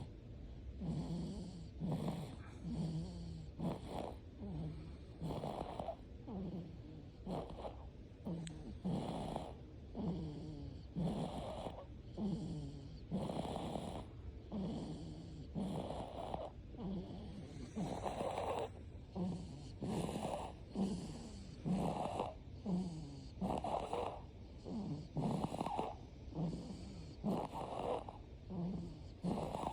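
Steady, rhythmic snoring, a short snore about once a second.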